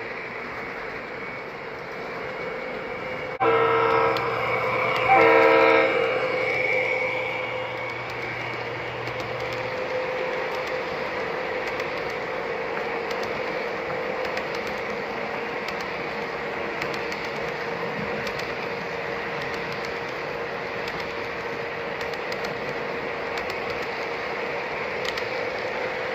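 O gauge model freight train running on the layout with a steady rolling noise. About three and a half seconds in, the locomotive's sound system gives two horn blasts of about a second each.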